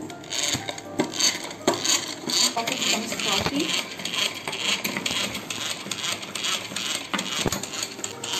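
Metal hand whisk beating a coffee, sugar and hot-water mixture in a glass bowl: rapid, uneven clinking of the wires against the glass with a wet splashing underneath, several strokes a second.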